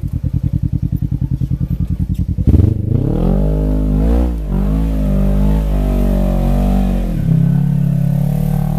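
Side-by-side UTV engine labouring at low revs in a fast, even pulse while the buggy climbs a muddy rut. About two and a half seconds in there is a knock, and the engine revs up and down in surges for several seconds.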